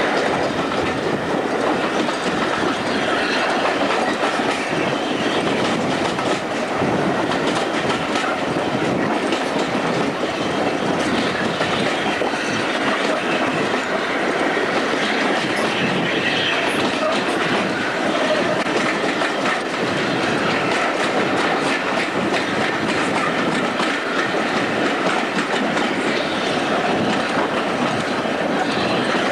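A passenger train running along the track, heard from an open carriage window: a steady rolling rumble with the clickety-clack of the wheels over rail joints.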